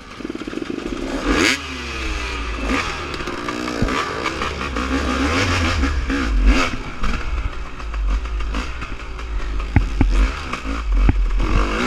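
Dirt bike engine revving up and down as the rider works the throttle along rough single-track, with a few clattering knocks from the bike over bumps, around ten seconds in.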